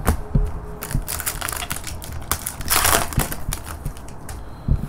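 Trading-card pack wrapper crinkling as a pack is opened and its cards are pulled out, with a run of small clicks and rustles. The loudest crinkle comes about three seconds in.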